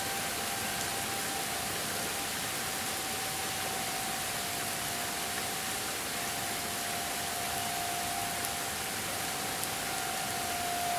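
Distant Federal Signal 2001-series outdoor warning sirens holding one steady, slightly wavering tone for a tornado warning, heard under an even steady hiss; a second, higher tone joins near the end.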